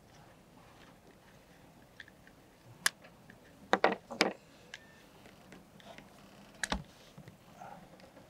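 Scattered sharp clicks and knocks of small plastic circuit-breaker casings and metal pliers being handled and set down on a wooden deck. A single click about three seconds in, a quick run of three louder ones just before four seconds, and another near seven seconds.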